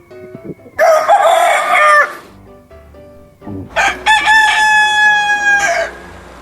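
Rooster crowing twice: a short, harsh crow about a second in, then a long, clear crow held for about two seconds that drops away at its end.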